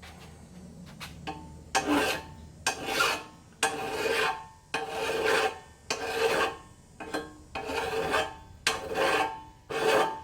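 Rasping strokes of an abrasive working a cut steel frame edge back to a line, about one stroke a second, each starting sharply and fading.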